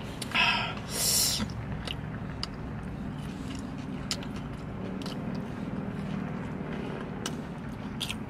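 A person chewing a mouthful of burger, with scattered small wet mouth clicks over a low steady hum. Two short, louder rustles come in the first second and a half.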